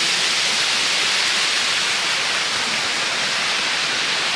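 A waterfall's falling water rushing, loud and steady.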